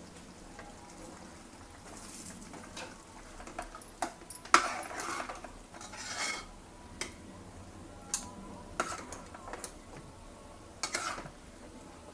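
Metal ladle stirring and scooping thick chickpea gravy in an aluminium pressure-cooker pot, with scrapes and scattered clinks of metal on metal; the loudest clink comes about four and a half seconds in.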